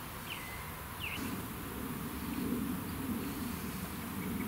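Quiet field ambience: a few short, sweeping bird chirps in the first second or so, then a low, slightly wavering buzz that sets in about a second in and holds.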